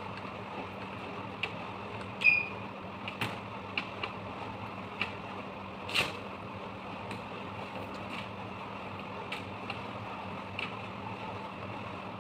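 Scattered light clicks and taps of small parts being handled during a cordless drill repair, with one short high squeak about two seconds in, over a steady background hum.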